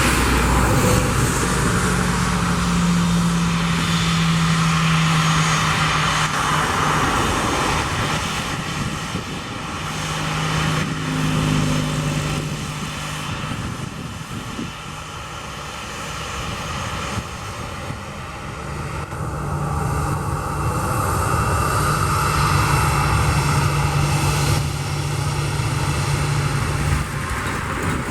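Boeing 737-700's CFM56 turbofan engines running loud, a steady roar that eases off in the middle and swells again in the second half.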